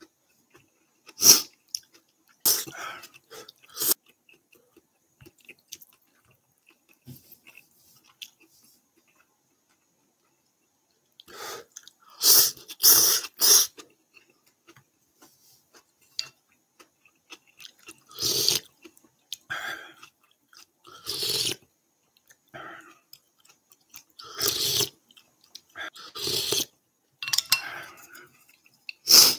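Ramen noodles being slurped and chewed, in several short, loud bursts with quiet pauses between.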